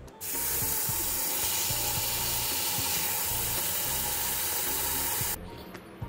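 Kitchen faucet spraying water into a steel bowl of rice in a stainless steel sink, rinsing the rice. The steady run of water starts just after the beginning and cuts off near the end.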